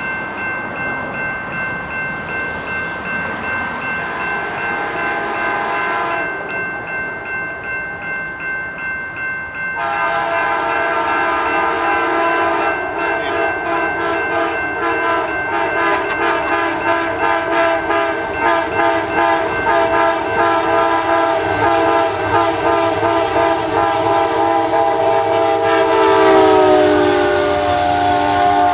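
Nathan K5LA five-chime air horn on a lead Amtrak GE P42DC locomotive, blown long and held for a horn show as the train approaches. The chord gets fuller and louder about a third of the way in, then drops in pitch near the end as the locomotive passes, over the rising rush of the train going by.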